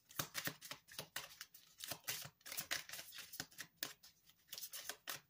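Tarot cards being shuffled in the hands, the cards slapping and sliding against each other in a long run of quick, irregular clicks.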